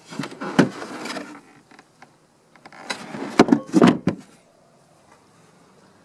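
Hands handling a minivan's cargo-area floor panels and trim: rubbing and scraping with several sharp knocks, in two bursts about two seconds apart.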